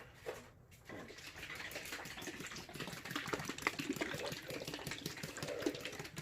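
Cloth rubbing polish onto a car's body panel by hand in quick back-and-forth strokes, starting about a second in.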